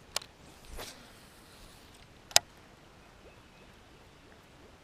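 Faint steady background with a small click at the start, a brief whoosh just under a second in, and one sharp, loud click about two and a half seconds in.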